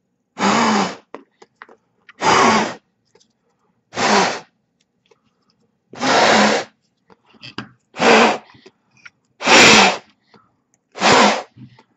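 Hand-squeezed rubber bulb air blower giving seven sharp puffs of air, about one every second and a half, to blow sand out of a brushless drone motor.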